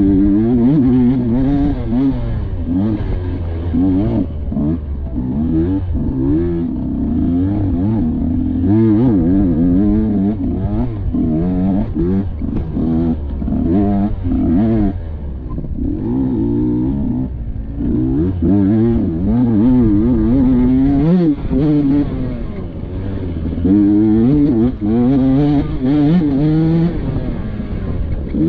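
Dirt bike engine revving up and down constantly as it is ridden, the pitch rising and falling every second or so with the throttle and gear changes.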